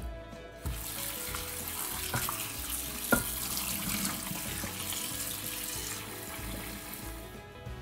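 Kitchen tap running onto peeled potato chunks in a pot as they are rinsed, the water splashing over the pot's rim into a stainless steel sink. The water starts under a second in and stops near the end, with a few sharp knocks along the way, the loudest about three seconds in.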